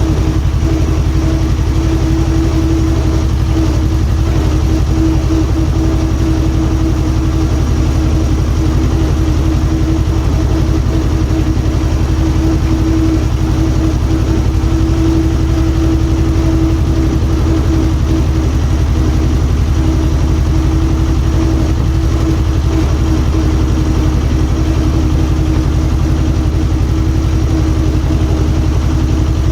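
Diesel engine of earthmoving plant running steadily, with a constant higher tone over its low note.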